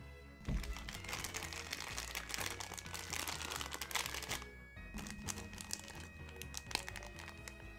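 Clear plastic packing bag crinkling as hands work a small plastic figure out of it, with a brief pause about halfway through. Background music plays underneath.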